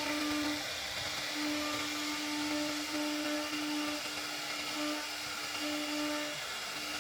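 CNC router spindle running and cutting wood: a steady whine that fades in and out slightly, over an even hiss.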